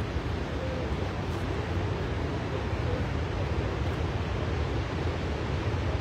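Steady rushing noise, with wind buffeting the microphone.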